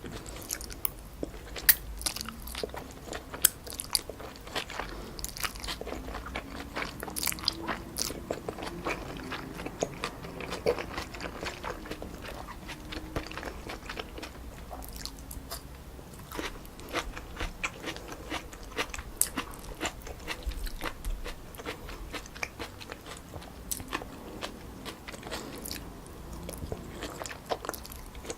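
Close-miked chewing and biting of stir-fried wide glass noodles with pork and vegetables, as a dense, irregular stream of sharp mouth clicks and smacks.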